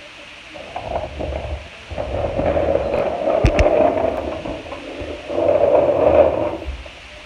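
Plastic toy school bus rolling across a wooden floor: a rough rumbling scrape of its plastic wheels that swells twice, with a couple of sharp clicks midway.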